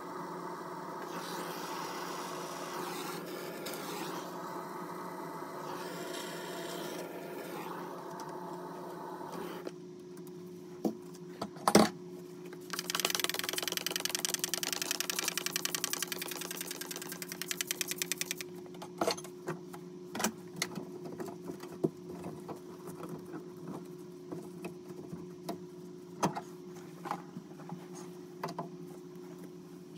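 A small power tool running with a rapid, even buzz for about five seconds near the middle, at work on the copper pipes of a new tub-and-shower valve. Before it a steady hum runs, and a sharp clack comes just before it starts; afterwards come scattered clicks and knocks of tools being handled.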